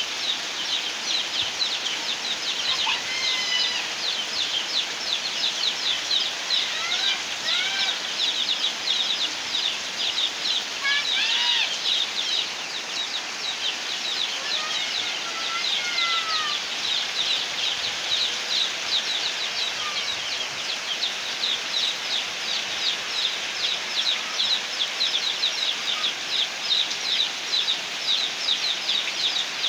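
Heavy rain falling steadily. A few short chirping bird calls come and go through the first half.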